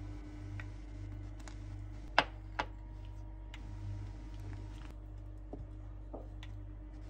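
Kitchen utensil clicks and taps around a stainless pan of cream sauce: two sharp clicks a little after two seconds in, and fainter taps later, over a steady low hum.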